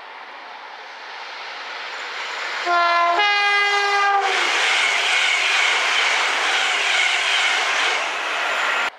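British train's two-tone horn: a short lower note and then a longer higher one as the train approaches, followed by the loud rush of the train passing at speed. The sound cuts off suddenly near the end.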